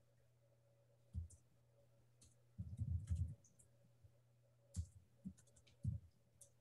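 Computer keyboard typing: faint, scattered key taps with a quick run of keystrokes about halfway through, over a steady low hum.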